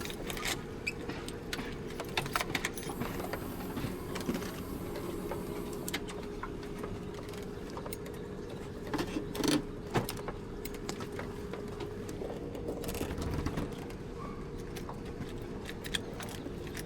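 Scattered small metallic clicks and jangles over a steady low hum, with a cluster of louder clicks about two seconds in and another around nine to ten seconds.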